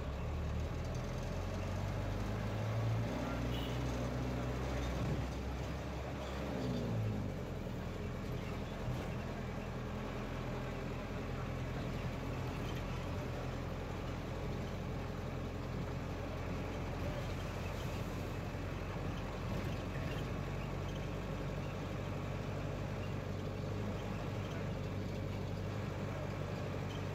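Motor vehicle engine running under way, with road and traffic noise. The engine note rises in the first few seconds and drops back about seven seconds in, then holds steady.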